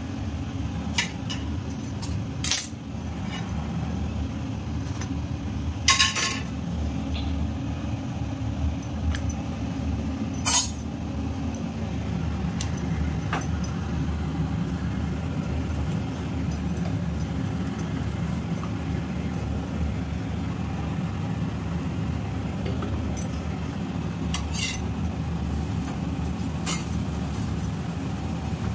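Steel spatula and steel kitchen utensils clinking and tapping against an iron tawa and steel containers, a handful of separate sharp clinks, over a steady low rumble.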